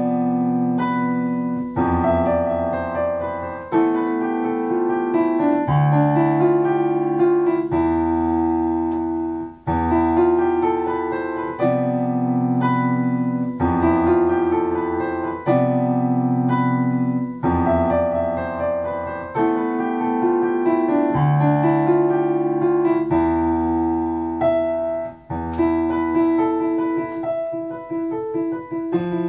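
Solo piano played by hand: a melody over low left-hand notes, with the bass changing about every one to two seconds.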